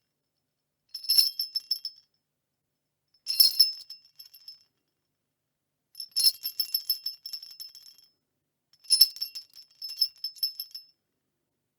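Jingle bells shaken in four short bursts with silence between them, each a bright jangle of small bell tones; the last two bursts run about two seconds each, longer than the first two.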